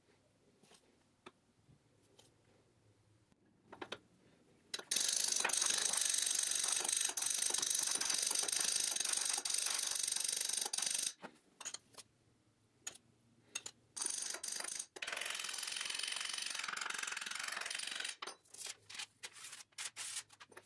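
Steel powder being spread and levelled by hand inside a steel welding canister: scattered light metal clicks, then a stretch of scraping about six seconds long and another of about four seconds, with a quick run of clicks near the end.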